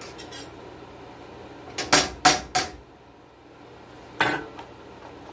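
Metal spoon clinking and knocking against a stainless steel sauté pan: light clicks at first, then four sharp knocks in quick succession about two seconds in, and one more near the end.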